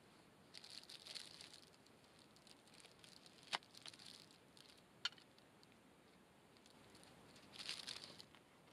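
Plastic wrapping rustling in two short bursts as a wrapped bunch of green onions is handled, with two sharp clicks in between.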